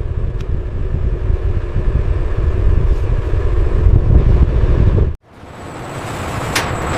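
A loud, steady low rumble with a noisy hiss over it, cut off abruptly about five seconds in. A second rumbling noise then swells back up, with a sharp click near the end.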